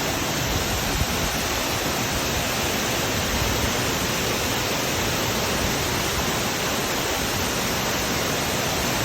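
Waterfall: water falling and pouring steadily, an even rushing noise with no breaks.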